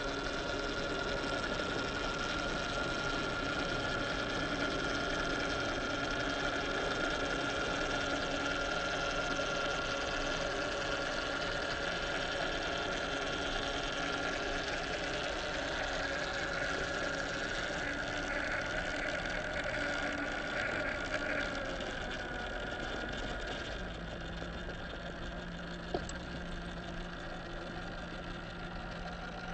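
Electric motor and geared drivetrain of a 1/10-scale Boom Racing BRX02 RC crawler whining steadily at an even pitch. About three-quarters of the way through the whine fades and gives way to a lower, steady hum. One sharp click comes near the end.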